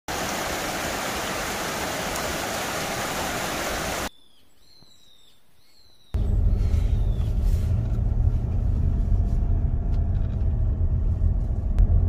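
Mountain stream rushing over rocks for about four seconds. It cuts to a quiet stretch with a few high chirps, and from about six seconds in there is the steady low rumble of a car driving along a road.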